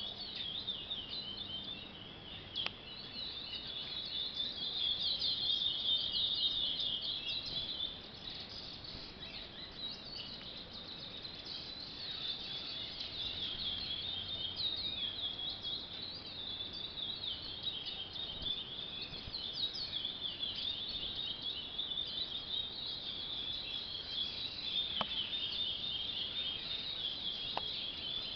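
Young curiós (chestnut-bellied seed finches) still learning their song, singing over one another in a continuous chorus of quick whistled phrases and chirps, with a few faint clicks.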